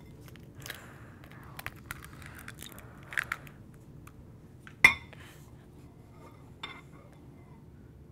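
Eggshell and glass bowls: small taps and clicks as a raw egg is pulled open over a small glass bowl and the bowl is handled, with one sharp clink of glass about five seconds in.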